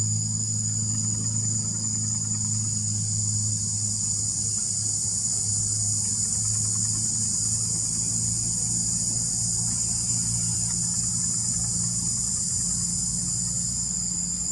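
Steady, shrill chorus of insects, with a low hum underneath.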